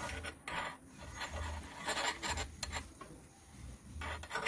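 Small metal spatula scraping and tapping against a miniature iron kadai around a frying batter snack, in a series of short rasping strokes: loosening the snack from the pan before flipping it.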